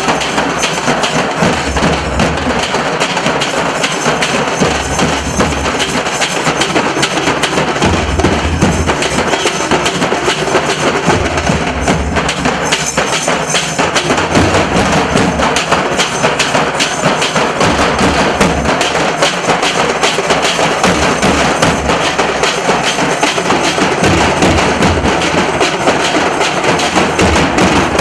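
Nasik dhol drum ensemble playing loud, fast, unbroken rhythmic drumming with heavy bass beats and dense sharp strokes.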